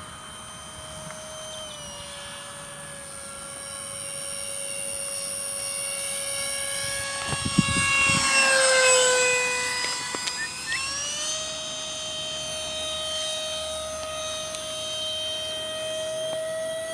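RC F-15 jet's 64 mm five-blade electric ducted fan, driven by a 4500kv outrunner motor, whining steadily in flight. The whine grows loudest as the jet makes a low pass about halfway through, its pitch sliding down as it goes by, then steps back up about two-thirds of the way through.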